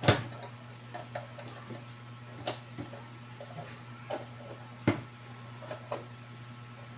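Scattered light clicks and knocks of parts and tools being handled on a workbench, about eight in all, the sharpest right at the start, over a steady low hum.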